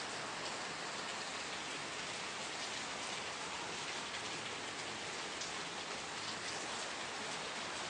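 Steady rain falling, a continuous even patter of drops on a surface.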